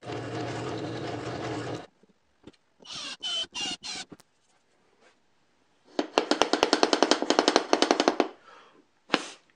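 Benchtop drill press running steadily for about two seconds, then a cordless drill driving screws into plywood in about four short bursts, each with a rising whine. About halfway through there are about two seconds of rapid clicking, roughly a dozen a second, which is the loudest part.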